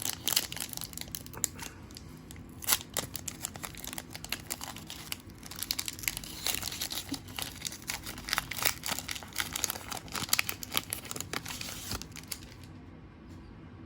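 Crinkling and tearing of a Donruss trading-card pack's plastic foil wrapper as it is ripped open and handled, a dense run of crackles that dies down near the end.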